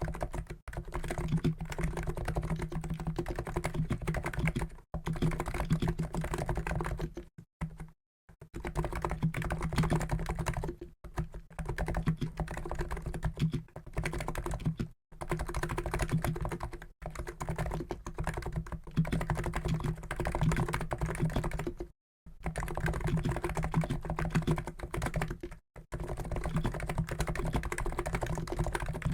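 Continuous fast typing on a COX Endeavour keyboard with NIZ electro-capacitive switches (50 g), a dense run of key presses broken by a few short pauses.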